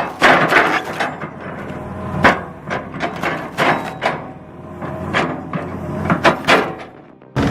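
Stump wood cracking and snapping under an excavator-mounted Lemix stump shear: about a dozen sharp, irregular cracks over the low hum of the excavator's engine.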